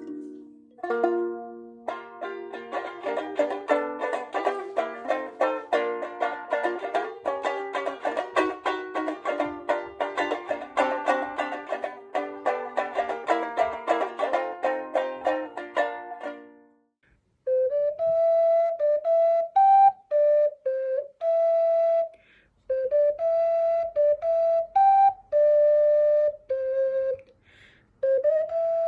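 Instrumental music: a plucked instrument playing fast, dense notes, which stops about 17 seconds in; after a short pause a flute-like wind instrument plays a simple melody of separate held notes.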